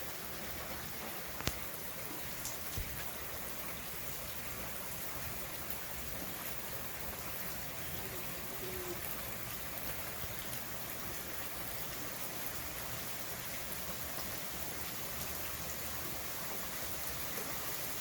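Steady rain falling, with a few sharper drop hits in the first few seconds.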